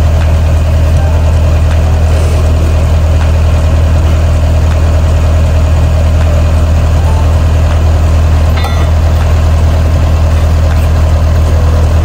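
Diesel engine of a John Deere 50G compact excavator running steadily at idle, with no revving.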